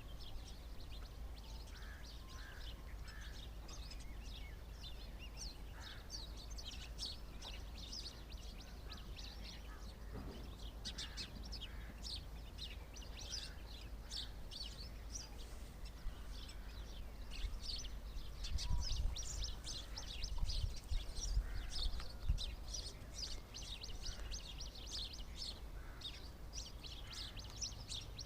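Many small birds chirping, a dense chatter of short high chirps that thickens in the second half, over a low rumble of wind or handling noise on the microphone that swells a little past halfway.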